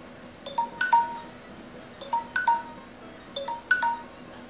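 Smartphone alarm going off: a short figure of bright chime notes repeating about every second and a half, waking a sleeper.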